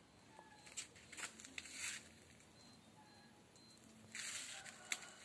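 Faint scuffs and rustles from a handheld phone being moved past potted plants, with a louder brief rustle about four seconds in.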